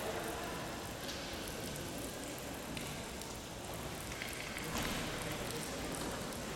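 Lambada (rain-curtain) fountain: many thin streams of water falling from height into its round pool, a steady, even splashing.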